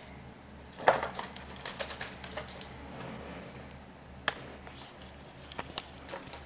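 Baby cockatiel pecking at millet: a quick run of small sharp clicks and taps about a second in, then a single click and a few lighter taps later.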